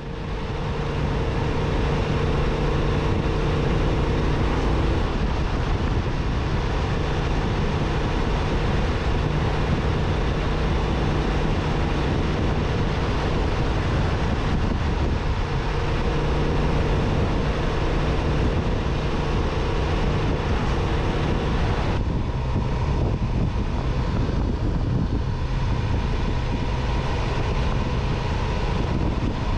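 Motorcycle engine running steadily at road speed, mixed with wind rush, as heard while riding; the sound changes about three quarters of the way through.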